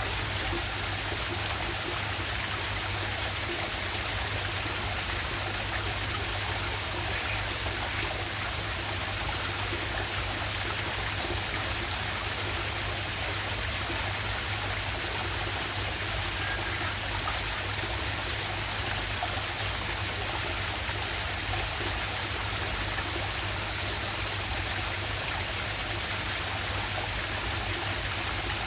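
Small waterfall on a river, its water rushing and splashing steadily without letting up.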